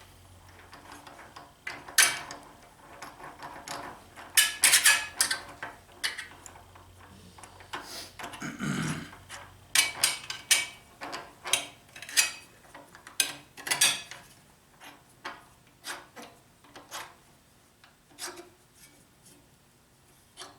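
Metal objects being handled and set down: irregular clinks, knocks and scrapes, busiest in the middle and tapering off near the end.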